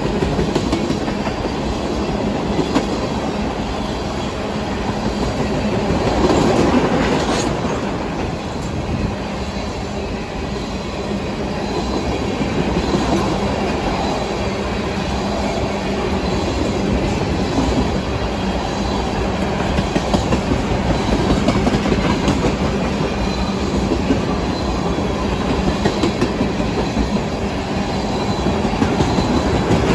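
Empty ethanol tank cars of a freight train rolling past at a steady speed, their wheels clacking over the rail joints in a continuous run.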